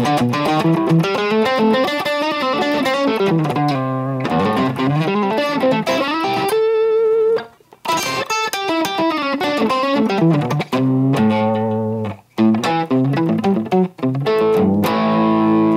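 Solid-body electric guitar played through a Line 6 guitar processor: quick single-note melodic runs, a brief pause about seven seconds in, ending on a held, ringing chord.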